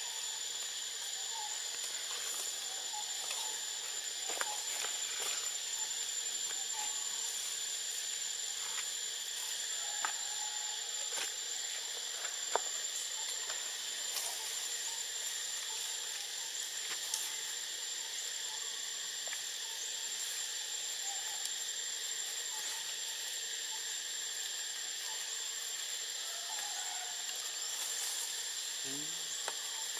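Steady forest-floor ambience: a continuous high-pitched insect drone over an even hiss, with a few faint clicks.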